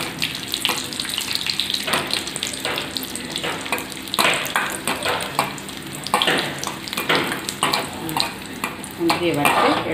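Cashew nuts sizzling in ghee in a steel wok, stirred with a steel ladle that scrapes and knocks against the pan over and over.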